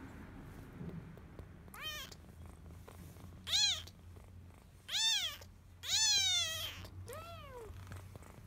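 Young orange tabby kitten mewing five times, thin high-pitched cries that rise and fall in pitch, the fourth one drawn out longer.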